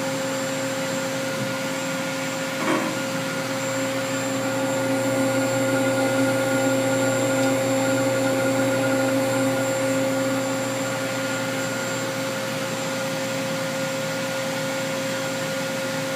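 Steady electrical and mechanical hum with a whine from a running Cincinnati Milacron Avenger 250MT CNC turning center, as its programmable tool-setter arm is brought down. A short knock comes about three seconds in, and the noise swells gently through the middle.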